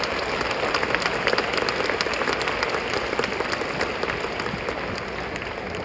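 Large indoor audience applauding, many hands clapping at once, easing off slightly near the end.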